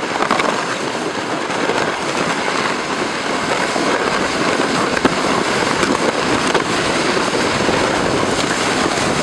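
A sled sliding fast down a rutted, packed-snow slope: a steady, loud, crackling scrape of the sled over the snow, full of small clicks and bumps.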